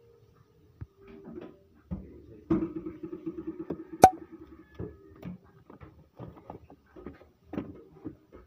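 Groceries being handled and shifted on a shelf: scattered knocks, clicks and packaging rustle, with one sharp click about four seconds in, over a faint low hum.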